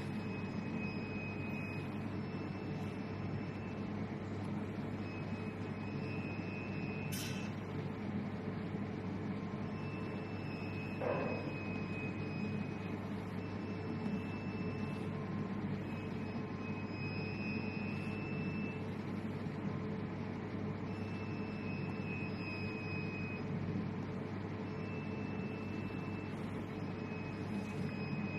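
Steady machine hum with a high whine that comes and goes every few seconds, each lasting a second or two. There is a sharp click about seven seconds in.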